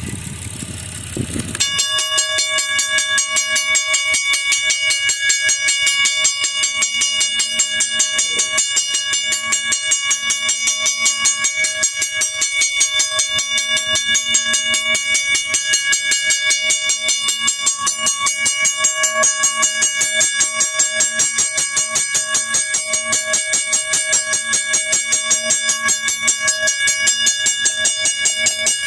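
1982 first-generation Western Cullen Hayes mechanical railroad crossing bell ringing. It starts about a second and a half in, and its clapper strikes the gong rapidly and evenly, each strike ringing on into the next.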